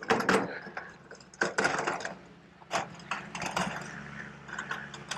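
Shovels chopping and scraping into waterlogged soil: a run of irregular strokes, with men's voices at times.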